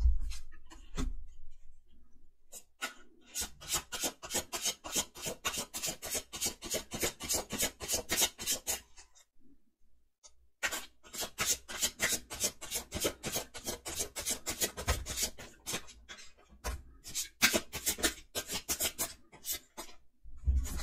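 Tarot cards being shuffled by hand: rapid rasping and flicking of cards against each other in two long runs, broken by a short pause about halfway through.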